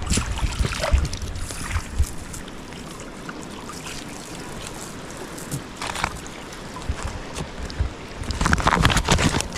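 Wind rumbling on the microphone, with bursts of water splashing about a second in and again near the end.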